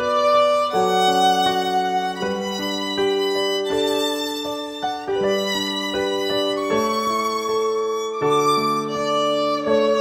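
Background music led by a violin, playing slow held notes over other sustained notes.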